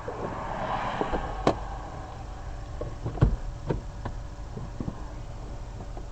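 Highway traffic passing close by, a swell of tyre and engine noise that fades after about two seconds, with several sharp knocks, the loudest about three seconds in.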